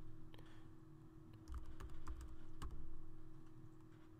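Computer keyboard keystrokes: a handful of irregular, faint clicks as a word is typed, over a steady low hum.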